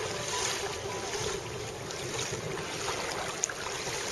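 Steady wind buffeting the microphone, mixed with light lapping of shallow water, and one short sharp click about three and a half seconds in.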